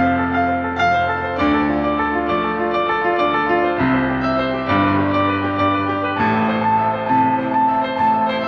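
Background music led by piano: a repeating figure of short notes over sustained bass notes that change every second or two.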